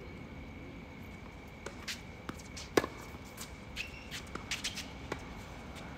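Tennis rally on a hard court: a racket strikes the ball with a sharp pop about three seconds in, amid lighter hits, ball bounces and shoe scuffs of the players' footwork. A faint steady high tone runs underneath.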